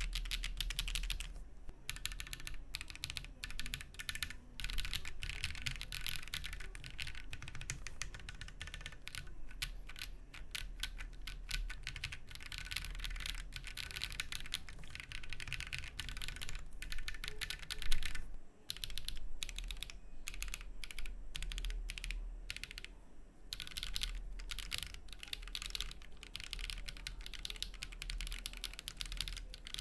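Rapid, continuous typing on a Monsgeek M1 mechanical keyboard, its keys clacking densely with a few short pauses. One keystroke about two-thirds of the way in is much louder than the rest.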